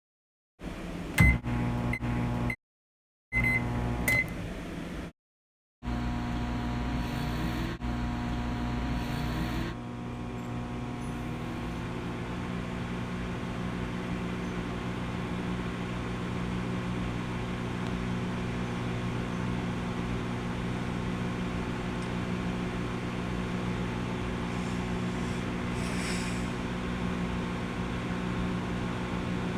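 Microwave oven: a few short keypad beeps, then the oven running with a steady electric hum, a tone rising slowly through it for several seconds.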